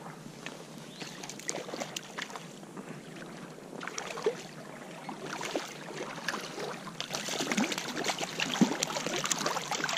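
Water splashing and sloshing as a hooked brown trout thrashes at the surface and the angler wades toward it through the stream; the splashing grows louder for the last few seconds.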